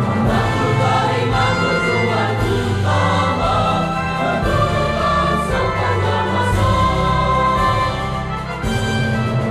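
Indonesian school march anthem sung by a choir over instrumental backing, carrying the lines "Akhlakul karimah tujuan utama" and "Untuk bekal sepanjang masa".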